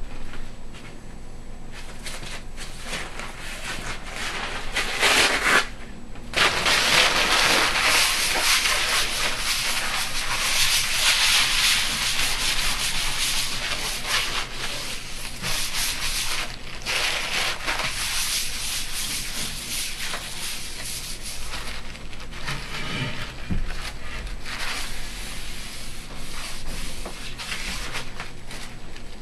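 Gritty back-and-forth rubbing on the frosted glass slab used for grinding pigments. It starts lighter, then turns steady and louder about six seconds in after a short break.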